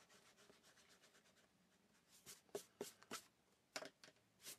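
Faint scratching of a pen on paper. Then, in the second half, about seven short, light clicks and taps as drawing tools are set down and picked up.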